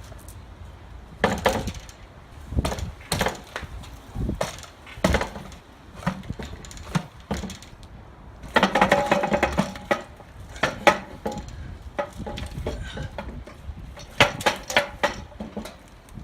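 Irregular metal clanks, knocks and clinks, with a longer ringing scrape about halfway through, as the transmission is worked loose and pulled off the back of an LS1 V8 engine.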